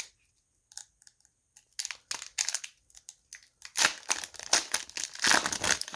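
The plastic foil wrapper of a hockey card hobby pack crinkling and being torn open. The crackles come sparse at first and grow louder and denser over the last two seconds.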